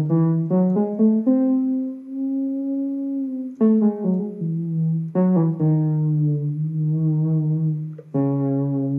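Homemade monophonic expressive synthesizer built on a Daisy Seed, playing a melody in the harmonic minor scale one note at a time: a few quick notes, then long held notes with short runs between.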